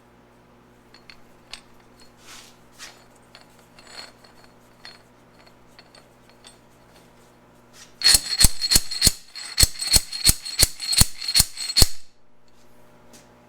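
Faint clinks of metal tools being handled, then about a second in from the midpoint a run of about a dozen sharp metal-on-metal strikes, roughly three a second for some four seconds, each with a high ring.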